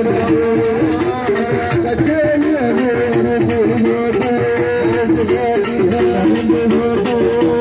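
Music: a melody of held notes with gliding ornaments over rapid, steady drumming.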